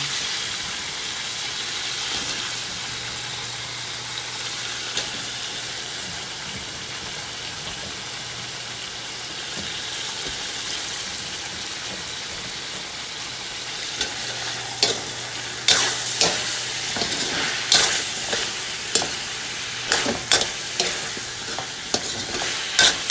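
Pork, squash and eggplant sizzling steadily in a metal wok. About two-thirds of the way through, a metal spoon begins scraping and knocking against the pan with sharp irregular clicks as the vegetables are stirred.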